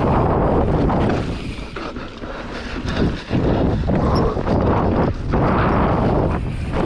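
Enduro motorcycle being ridden, its engine noise mixed with heavy wind buffeting on the microphone. The sound eases off about a second in, then comes back sharply after about three seconds.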